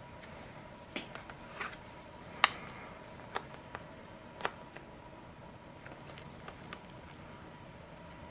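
Fingers pressing and smoothing thin tape down over a servo cover on a carbon-fibre wing panel: scattered light clicks and taps, the sharpest about two and a half seconds in.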